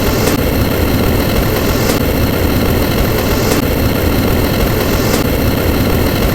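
A loud, steady engine-like rumble, used as a sound effect. A faint high hiss recurs about every second and a half.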